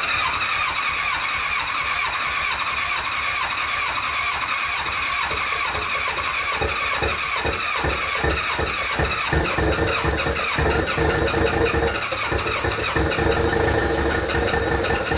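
Electric starter cranking a 2000 Kawasaki ZX-7R's inline-four engine, a steady starter whine over even compression pulses, without the engine catching: the tank holds no fuel, only a spray of carb cleaner.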